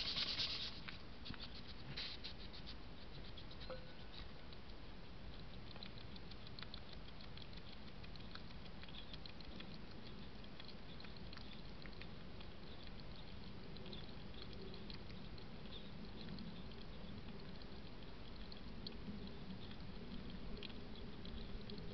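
Hedgehog feeding at a dish close to the camera: a steady run of small, irregular clicks and crunches, with a louder rustle at the very start as it brushes past the lens.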